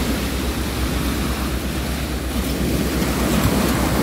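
Shallow surf washing up over a sandy beach, a steady wash of small waves, with wind rumbling on the microphone.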